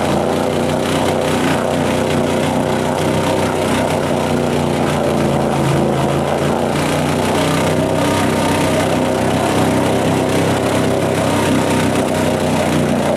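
Ford F-150 pickup's engine held at high revs, steady and loud, as the truck churns wide open through a deep mud bog with its tires spinning and throwing mud.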